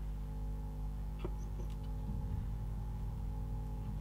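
Steady low electrical hum, with one faint click about a second in and a couple of tiny ticks after it.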